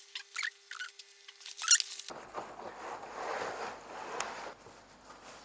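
Cardboard box being opened: a few sharp scrapes and clicks from the end flap, the loudest about a second and a half in. Then a longer rustle as the bubble-wrapped aluminium grill pan slides out of the box.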